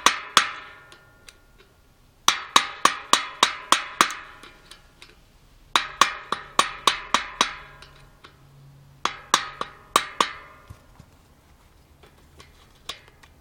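Hammer striking a screwdriver set in the notch of a bicycle freewheel's threaded ring, metal-on-metal taps with a ringing tone, about four a second in several runs separated by pauses, to tap the ring round and unscrew it.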